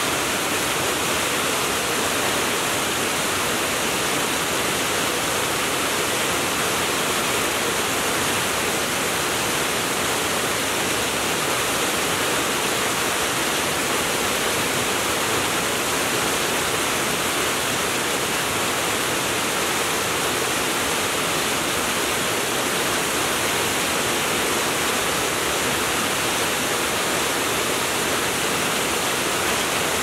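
Small mountain-brook waterfall pouring over rock into a shallow pool: a steady, even rush of falling and splashing water.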